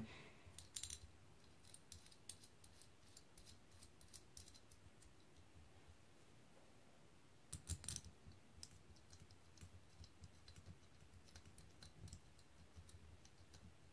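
Mostly near silence with faint scattered clicks and taps of small screws and metal parts being handled and hand-threaded into an aluminium motorcycle carburetor body, with a brief louder cluster of clicks about halfway through.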